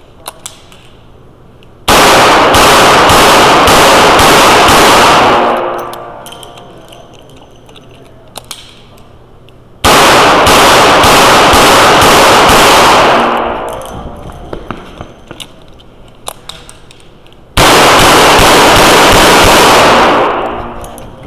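Revolver fired in three rapid strings of shots, each lasting about three and a half seconds, echoing in an indoor range and so loud the recording clips. Quieter clicks of gun handling come between the strings.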